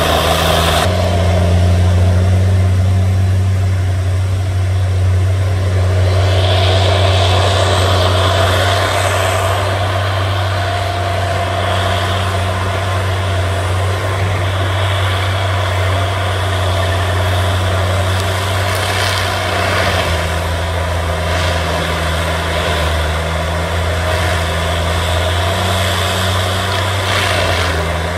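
Tigercat M726E tracked forestry mulcher working: its diesel engine runs steadily under load as a low drone, with a higher steady whine above it while the mulching head grinds brush.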